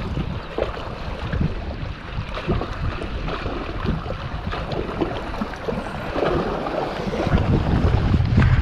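Wind buffeting the microphone in uneven gusts over a background of moving water, with the buffeting growing heavier near the end.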